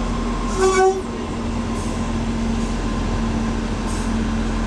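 A train running steadily with a low rumble and a constant drone. A short, high pitched beep or squeal cuts in about half a second in.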